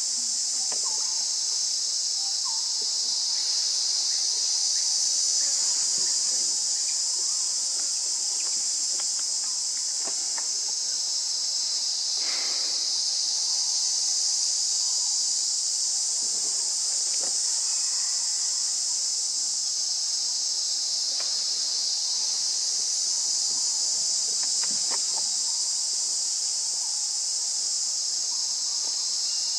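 Steady high-pitched drone of an insect chorus, swelling and easing slightly, with a few faint scattered clicks.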